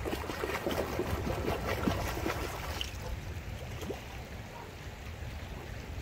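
Salmon splashing at the surface of a shallow, rocky river during the first few seconds, over the steady sound of the current.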